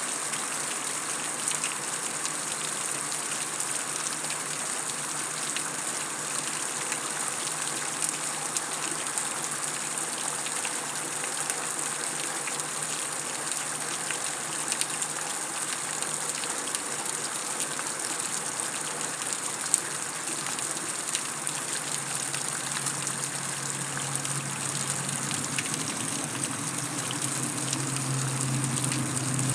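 Heavy rain falling steadily on concrete, a dense hiss of drops with scattered sharper drip ticks. A low rumble swells over the last several seconds.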